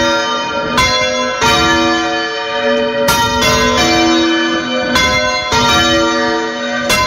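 Church bells hung on wheels and swung full circle, heard close up from inside the bell chamber. They strike one after another, each strike followed by a long ringing tone that overlaps the next.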